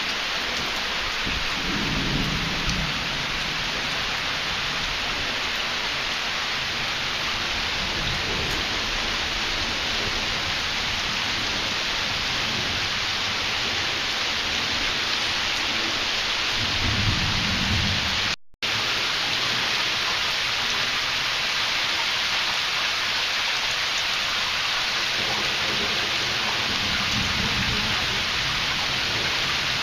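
Steady heavy rain with thunder rumbling four times, the loudest rumble just past halfway. The sound drops out for an instant right after that rumble.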